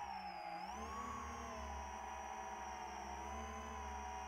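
A 10-inch FPV quadcopter's iFlight XING 2814 1100KV motors and HQProp three-blade props whining in flight. The pitch dips briefly, rises again about a second in with the throttle, then holds steady.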